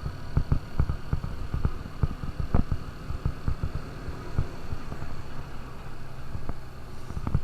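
KTM RC200 BS6's single-cylinder engine running steadily while riding, a low hum broken by frequent irregular low thuds.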